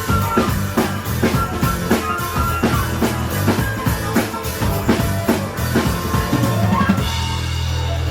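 Rock band playing an instrumental passage between sung lines: a steady drum kit beat of about four hits a second over sustained band chords. A fast drum fill runs just before seven seconds in, then the drums stop and the band holds a chord.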